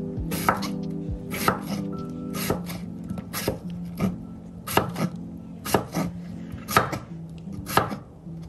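Kitchen knife chopping papaya into cubes on a wooden cutting board: slow, regular knocks of the blade striking the board, about one or two a second.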